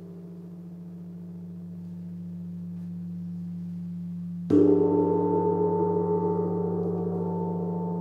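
A hand-held metal gong, struck once with a mallet about halfway through, then ringing on several pitches that slowly die away. Before the strike, the ringing of an earlier stroke is fading, over a steady low hum.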